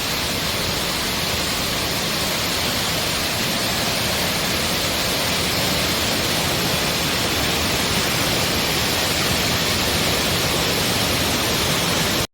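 Waterfall: a steady rush of falling water that cuts off suddenly at the end.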